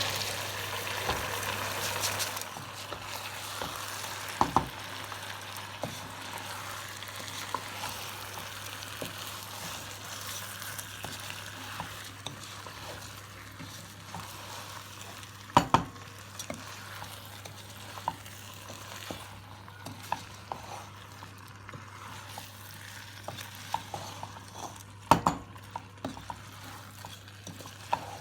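Rice being stirred into a pot of sizzling chicken and spices: a steady sizzle, louder for the first two seconds, with a metal spoon knocking against the pot now and then, three knocks standing out.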